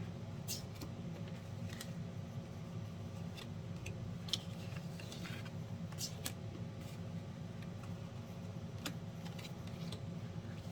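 Tarot cards being handled: scattered light snaps and taps of the cards, a few seconds apart, over a steady low hum.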